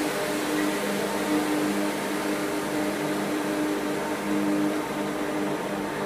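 Steady mechanical hum and hiss inside a passenger train carriage, with a low droning tone held throughout.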